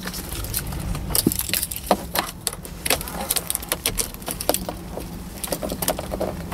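Car keys jangling and clicking as they are handled at the ignition lock: a run of small, irregular clicks.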